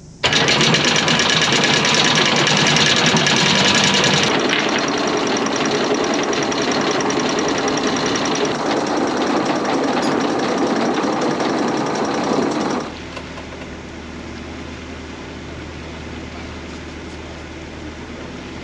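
Electric anchor windlass hauling in chain: a loud, rhythmic mechanical clatter of motor and chain links that starts suddenly. After that comes a steady engine drone as the boat motors, dropping to a quieter low hum about 13 seconds in.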